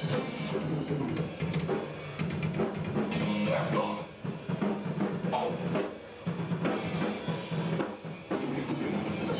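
Rock music at steady loudness, led by a drum kit with kick, snare and cymbals over a low bass line.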